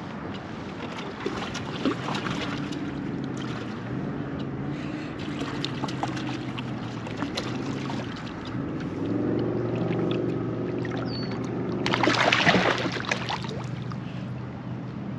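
Hooked fish being fought to a kayak: small clicks and water noise, a steady low hum through the middle, then a loud splash about twelve seconds in as the fish thrashes at the surface.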